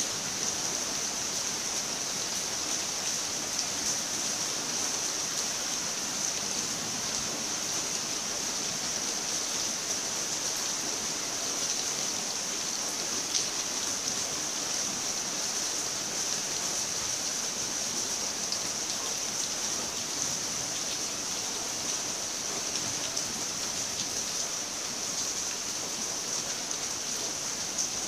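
Steady rain falling: an even, continuous hiss with faint scattered drop ticks.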